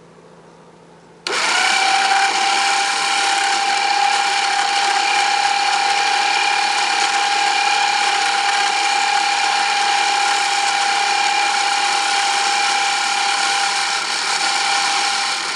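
Kayak launcher's motorized winch switching on about a second in and running steadily with a gear whine as it lowers the kayak cradle down its track into the water.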